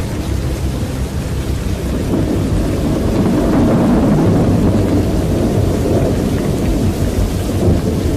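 Loud storm roar from a tornado: a dense, low rumble of wind and rain that swells about three seconds in.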